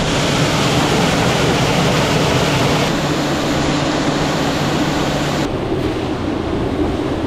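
A vehicle engine running steadily under a dense rushing noise, with sudden shifts in the sound about 3 and 5.5 seconds in.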